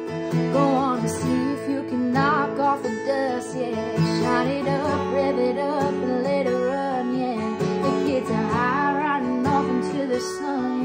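Acoustic guitar strummed steadily under a woman's singing voice, which holds and bends several long, wavering notes.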